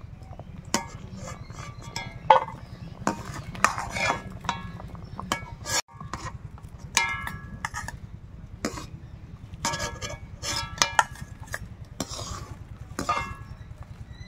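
A metal spoon clinking and scraping against a metal kadai and a steel bowl as parboiled taro pieces are scooped out of the water; irregular clinks, some ringing briefly.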